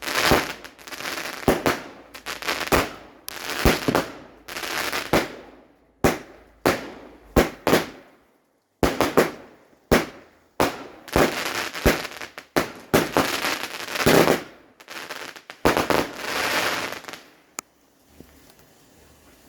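Fireworks going off in quick succession: sharp bangs, each followed by a crackling hiss. They stop a couple of seconds before the end.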